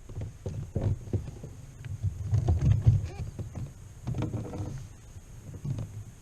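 Low knocks and bumps on a plastic fishing kayak's hull as the angler moves about in it, with a couple of brief murmured voice sounds.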